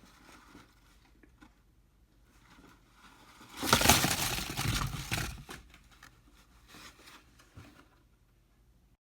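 Faint scattered handling noises, then a loud burst of rustling, crinkling noise lasting about two seconds, starting a little over three seconds in.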